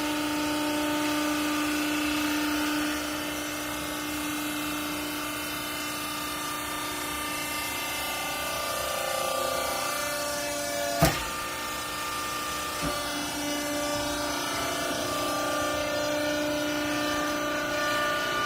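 Garment baler running: a steady machine whine whose pitch shifts now and then. There is one sharp clank about eleven seconds in and a lighter knock a couple of seconds later.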